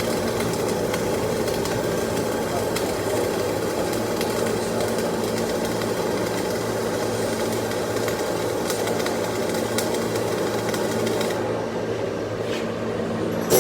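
Flux-cored arc welding on a test plate: the arc keeps up a steady, dense crackle and hiss over a low hum.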